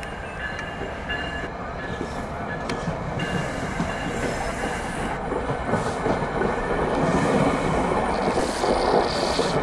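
Commuter train wheels rumbling and clattering over the rails, the noise growing steadily louder toward the end as a train draws near.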